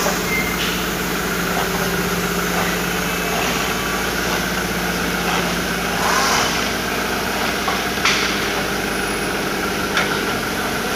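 Toyota Fortuner's engine running steadily while the SUV rolls slowly and brakes, with a few light clicks, the sharpest about eight seconds in. The knocking under braking is gone now that the loose accessory alarm horn has been refastened to its bracket.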